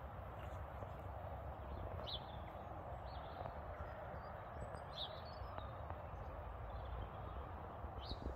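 Steady outdoor background noise with a low rumble, and a few short, faint bird chirps about two and five seconds in.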